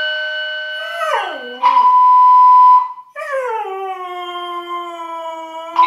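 Siberian husky howling at a sounding fire alarm: a short howl sliding down in pitch about a second in, then a long howl that slowly falls in pitch. The alarm's steady electronic tone sounds at the start, loudest just before the long howl, and again at the very end.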